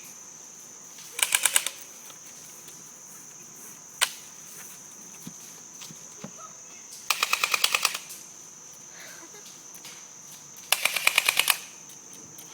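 Airsoft guns firing in quick automatic bursts, about a dozen shots a second: three short bursts, and a single shot about four seconds in. A steady high insect buzz runs underneath.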